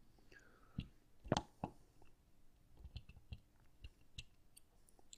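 Faint scattered clicks and taps of a clear plastic game controller and its circuit board being handled, the loudest about a second and a half in.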